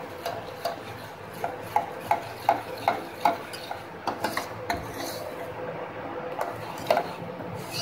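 Metal spoon stirring a thick pudding mixture in a stainless steel pot, clinking against the sides of the pot about twice a second.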